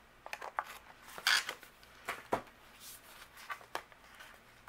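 Paper and cardstock rustling with light taps and clicks as a sticker border strip is handled and pressed onto a card by hand. The sounds come in short, scattered bursts, the loudest a rustle about a second in and a sharp click near the middle.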